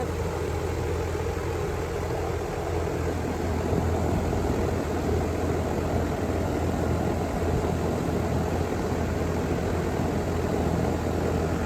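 2009 Lennox Elite two-stage 5-ton central air conditioner's outdoor condenser running steadily: a low, even compressor hum under the rush of air from its condenser fan.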